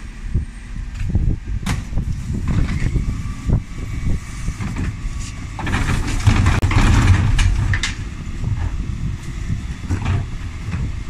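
Dennis Elite 6 bin lorry running, with its Terberg TA-DE bin lift raising and tipping two wheelie bins: scattered clanks and knocks of the bins on the lift. About six seconds in comes a louder rushing clatter as the bins are emptied into the hopper.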